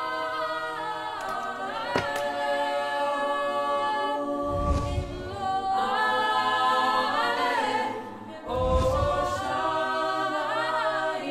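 A cappella choir singing slow, held notes as background music.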